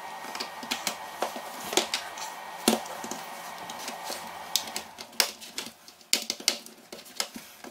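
Irregular sharp plastic clicks and snaps from an HP Pavilion x360 laptop keyboard's retaining clips as it is pried up from the deck with a plastic wedge tool. The clicks come thicker in the second half.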